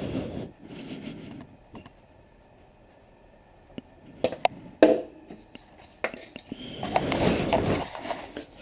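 Hand-twisted spice grinder grinding over a cooking pot for about a second and a half, then a pause. Then a few sharp clinks of glass or metal, and scraping, rustling handling noise near the end.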